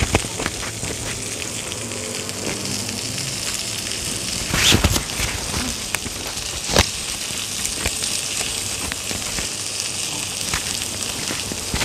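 Tomahawk steak sizzling on a ridged grill pan over low heat with rosemary and garlic cloves: a steady frying hiss, with a couple of sharper pops about five and seven seconds in.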